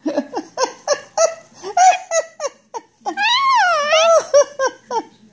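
Indian ringneck parrot chattering in a quick run of short, high notes, then giving one longer call that rises and falls about three seconds in, followed by a few more short notes.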